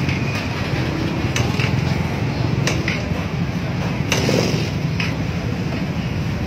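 Steady din of stalled traffic, motorcycle and truck engines idling, with a few short knocks along the way.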